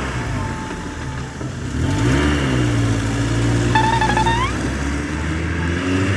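Truck engine sound running steadily, with the pitch rising and settling about two seconds in as if revving. A short high tone that bends upward sounds near the four-second mark.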